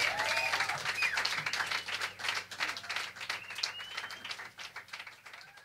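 Audience applauding, with a few whoops and a whistle over the clapping, which thins out and dies away near the end.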